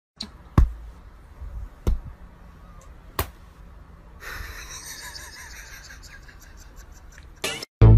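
Three sharp knocks about a second and a quarter apart over quiet room noise, then a faint hiss through the second half and a brief burst near the end.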